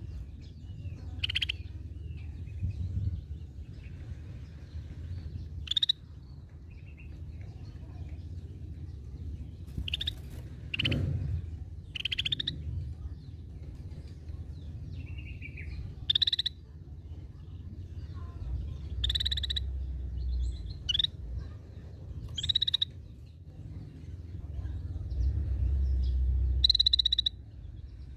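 Scaly-breasted bulbul (cucak bersisik) giving short, sharp call notes, about a dozen of them spaced one to four seconds apart, over a low background rumble.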